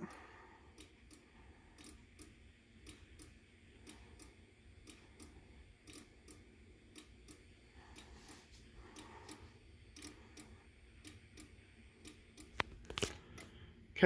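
Fire alarm horns silenced by two-wire audible silence: quiet, with faint irregular ticks and clicks several times a second over a light rumble, and a couple of sharper clicks near the end.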